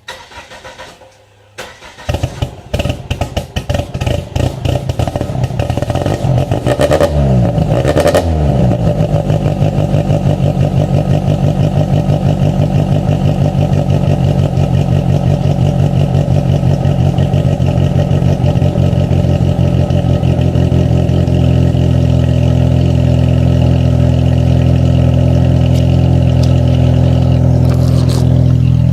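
1998 Eagle Talon ESi's 2.0-litre four-cylinder cranking and catching about two seconds in, running unevenly, revved and dropping back twice around seven and eight seconds, then idling steadily through an unfinished DNA Motoring exhaust with no catalytic converter. The owner puts its rough running down to a failed second oxygen sensor.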